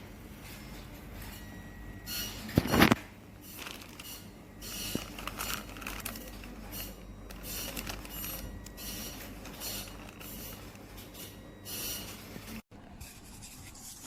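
Irregular rustling and handling noise of objects being moved about, with one louder clatter about three seconds in. A steady low hum underneath stops abruptly near the end.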